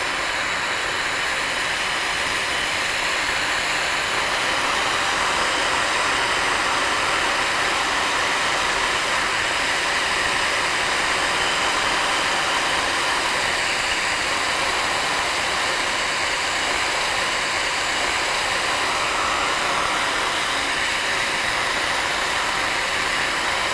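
Handheld gas torch burning with a steady hiss, its flame held on a pump motor's shaft sleeve to heat it and soften the Loctite that holds the sleeve on the shaft.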